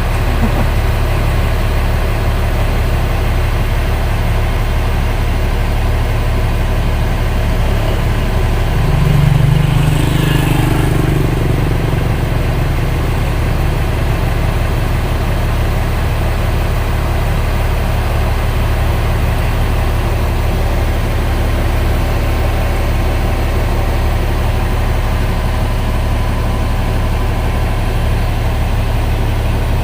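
Diesel engine of an XCMG 25-ton truck crane idling steadily, with a brief louder swell about a third of the way in.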